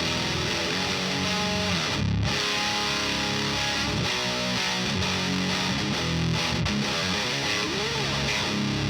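Electric guitar played through a Diezel VH4 preamp pedal, giving a heavily distorted high-gain tone as riffs and chords are played continuously.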